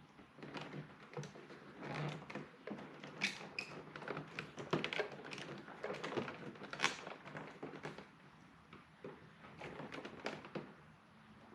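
Volvo 740 door trim being worked loose and handled: irregular clicks, taps and light knocks.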